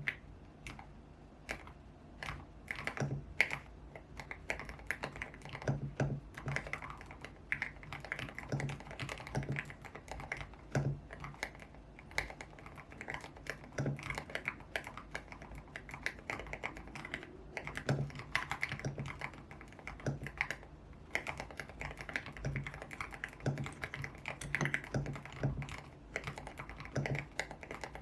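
Typing on a tape-modded, lubed YUNZII X75 Pro mechanical keyboard with Kaith Jellyfish switches and pink cherry-profile solid keycaps. It is an uneven, continuous run of keystrokes, each a short click with a low thud under it.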